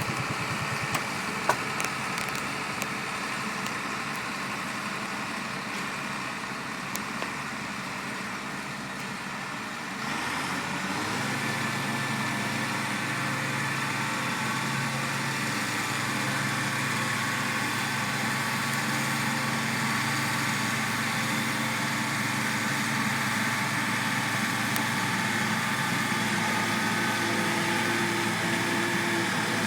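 John Deere 4450 tractor's six-cylinder diesel engine running steadily, with a few light clicks in the first couple of seconds. About ten seconds in it gets louder and a deeper steady drone joins, as if load comes on or the revs go up.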